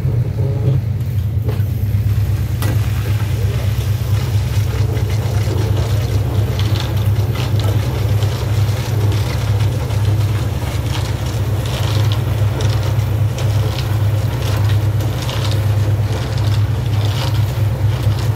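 Single-cylinder diesel engine of a công nông running steadily with an even chugging throb, with scattered knocks and scrapes over it.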